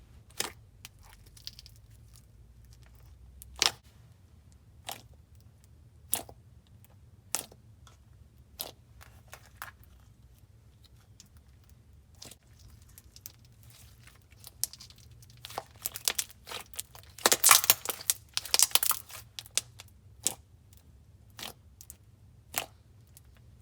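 Basic slime being handled and stretched, giving sharp pops and clicks about once a second, with a denser run of crackling pops about sixteen to nineteen seconds in.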